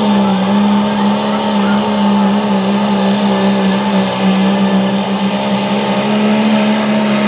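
Diesel engine of a Dodge Ram pulling truck run hard at high revs under full load while it drags a weight-transfer sled. Its pitch drops slightly at the start and then holds steady.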